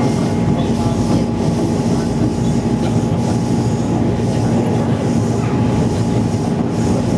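MTR East Rail Line MLR electric train running at steady speed, heard from inside the passenger car: a constant rumble of wheels on the track with a steady hum underneath, not changing in pitch.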